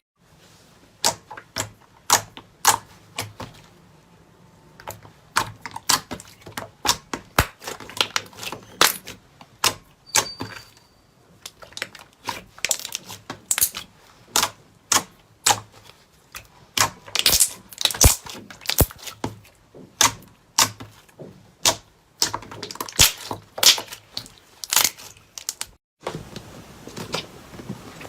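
Slime being pressed and poked, giving rapid, irregular sharp clicks and air-bubble pops, with a short break near the end.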